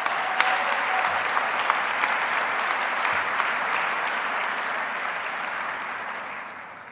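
Conference audience applauding, the clapping holding steady and then dying away near the end.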